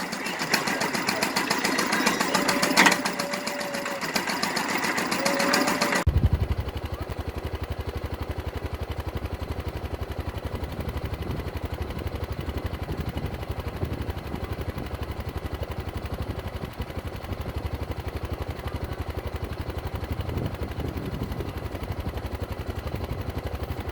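Old hay baler running: mechanical clatter with a few sharp clicks, changing suddenly about six seconds in to a steady, low, rapid rhythmic thumping of the machinery at work.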